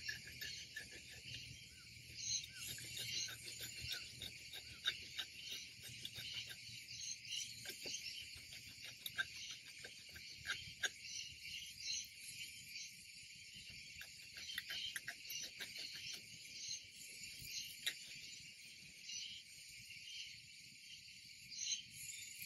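A steady insect chorus chirring, with scattered clicks and rustles of citrus branches and leaves being handled.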